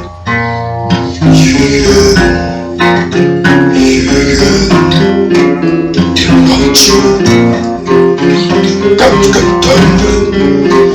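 Dark folk music led by acoustic guitar, plucked and strummed, dipping briefly at the very start before carrying on.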